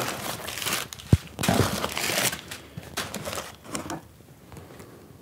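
Crumpled packing paper rustling and crinkling as it is pulled out of a cardboard box, with one short knock about a second in; the rustling dies down about four seconds in.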